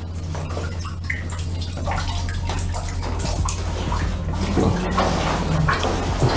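Muddy water sloshing and splashing in a flooded mine tunnel as people move through it, with scattered small knocks, over a steady low hum.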